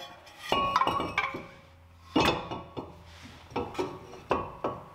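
New steel brake disc clinking and ringing as it is pushed and knocked onto the wheel hub: a series of separate metallic knocks, each with a short ring, the loudest a little over two seconds in.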